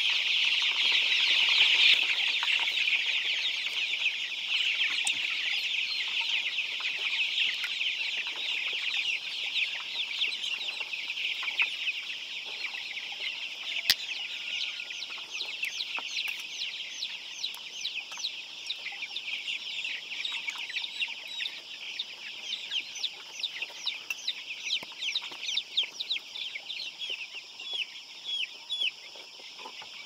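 Many chicks peeping together: a dense chorus of short, high peeps that thins out until single peeps stand out near the end. One sharp click about halfway through.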